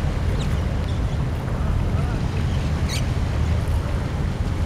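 Wind buffeting the compact camera's built-in microphone: a steady low rumble. A couple of short, high chirps come through, about half a second and three seconds in.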